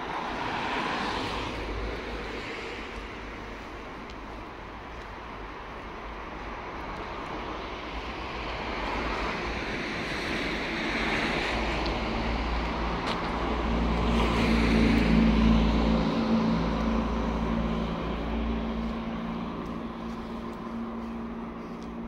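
Road traffic passing: tyre and engine noise swells and fades several times, loudest about fifteen seconds in, with a steady low engine hum through the second half.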